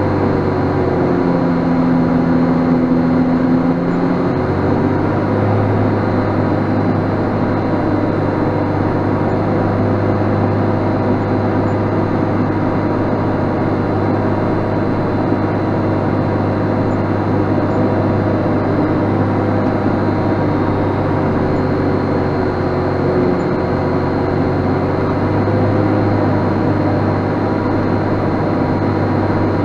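JCB Fastrac 7270's straight-six Cummins engine running under load while pulling a six-furrow plough, a steady heavy drone. Its note shifts briefly about a second in and settles back at around four seconds.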